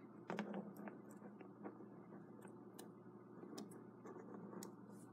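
Faint, irregular small clicks and taps of the metal clock movement being handled in the fingers, over a low steady hum.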